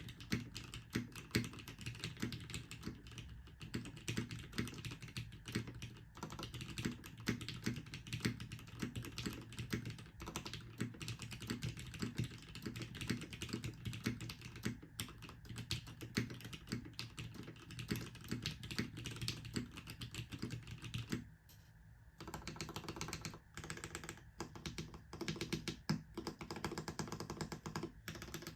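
Typing on a top-mount HBCP mechanical keyboard with a full FR4 plate, lubed Cherry MX Retooled Black linear switches and GMK keycaps: a steady stream of keystrokes, stopping for about a second roughly three-quarters of the way through.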